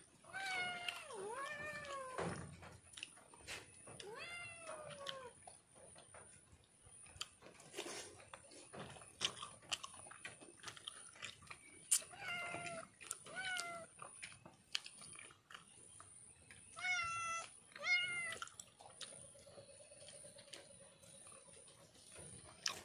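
A domestic cat meowing about seven times in short groups, begging for food at mealtime, with scattered sharp clicks and taps in between.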